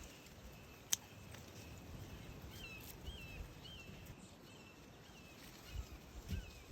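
A small bird chirping faintly outdoors: a run of short, wavering high notes about twice a second. There is one sharp click about a second in.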